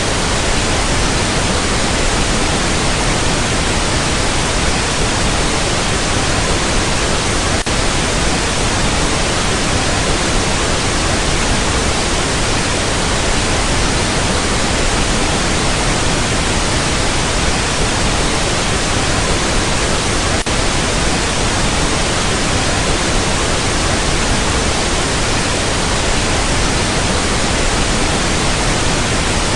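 Loud, steady television static: an even hiss of noise with no tone or voice in it, as from a dead or lost broadcast signal.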